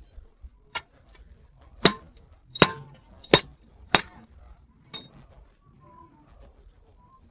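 Metal struck on metal during axle bearing work: about six sharp clinking knocks, the four loudest spaced under a second apart in the middle, each with a short ring.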